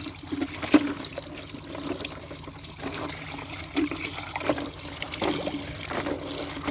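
Water from a pump running and splashing over plastic toy vehicles as they are washed, with several light knocks as the toys are handled.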